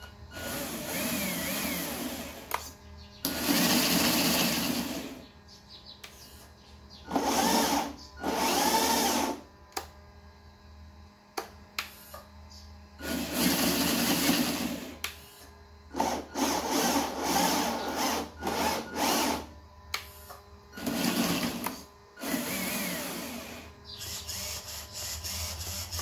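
The RC truck's small electric motors and gearing whir in repeated bursts of one to two seconds as the transmitter sticks are worked, stopping in the gaps between.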